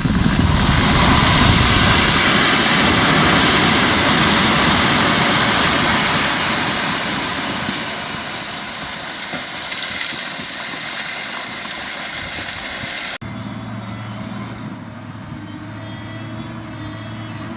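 Heavy vehicle engine noise: a loud, rough rushing sound that eases off after several seconds, then, after an abrupt cut about three-quarters of the way through, a steady low engine hum as of idling.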